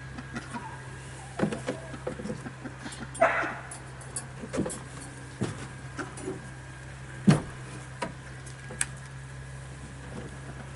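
Scattered knocks and clunks on wood from work inside a wooden smokehouse, the loudest a sharp knock about seven seconds in, with a short harsh sound a little after three seconds, over a steady low hum.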